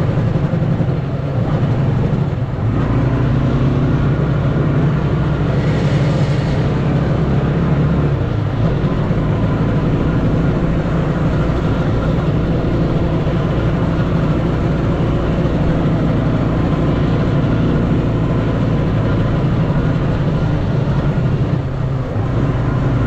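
Engine of a homemade off-road vehicle running steadily while under way, loud and even, with a slight change in its low note about eight seconds in.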